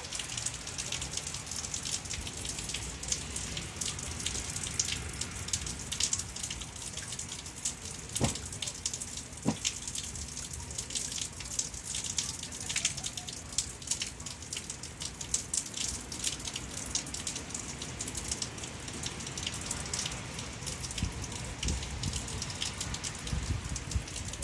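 Rain falling and dripping, with many individual drops ticking on nearby surfaces over a steady hiss, and two sharper ticks a little past a third of the way through.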